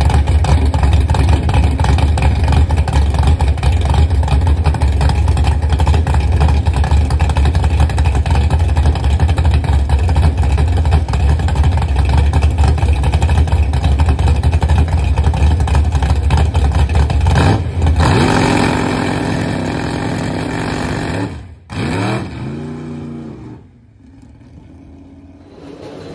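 Drag race car's engine idling loud with a choppy, pulsing rumble. About eighteen seconds in the pitch changes, briefly rises and falls as it revs, and then the sound fades off.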